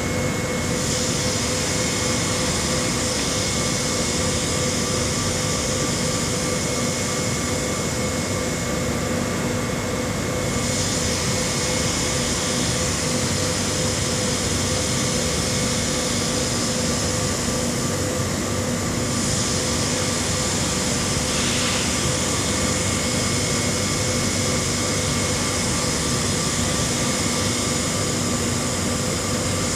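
Jooke template sewing machine running idle between sewing cycles: a steady mechanical hum with a constant whine. A higher hiss comes on about a second in, stops about ten seconds in and returns near twenty seconds.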